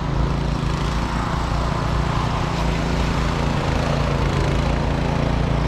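Snowblower engine running steadily with a constant low hum.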